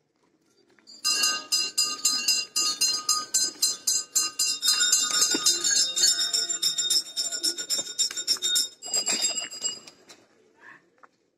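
Metal temple bells rung rapidly, many quick strikes with overlapping ringing tones. The pitch of the ringing changes partway through as another bell sounds, and the ringing stops about ten seconds in.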